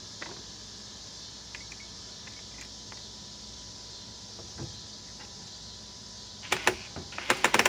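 Steady low hiss for most of the time, then near the end a quick, irregular run of sharp clicks and taps.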